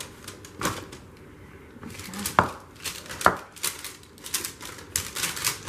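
Chopped vegetables being tipped onto a parchment-lined baking pan and spread around by hand: parchment paper crinkling and pieces tapping onto the tray, with two sharp knocks a little under a second apart near the middle.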